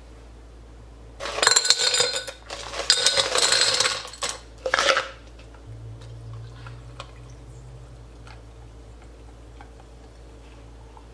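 Ice cubes clattering and clinking into a tall glass in two long spells and a short last one, then faint pouring and small ticks as milk runs over the ice.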